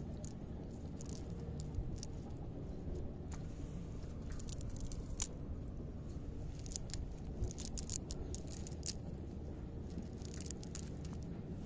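Hands working through a wet cast net lying on weeds: soft rustling with scattered light clicks and ticks, busiest in the middle of the stretch.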